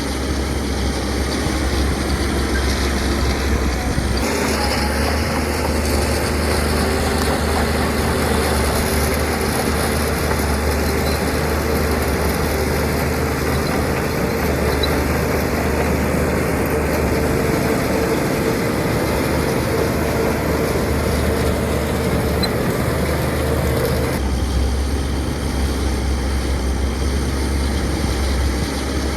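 Heavy diesel earthmoving machinery running steadily, its engine sound changing abruptly about four seconds in and again near the end.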